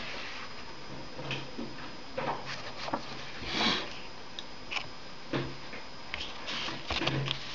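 Paper rustling and light clicks as the pages and card inserts of a CD booklet are handled and turned, with a louder rustle a little past the middle, over a faint steady hum.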